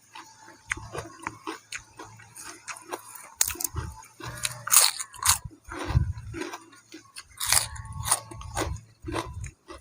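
A person biting and chewing crunchy food close to the microphone: a run of sharp, irregular crunches.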